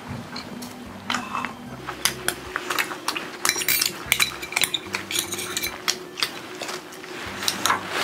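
Chopsticks tapping and clinking against small stainless-steel bowls and dishes during a meal: a scattered string of light, sharp clicks.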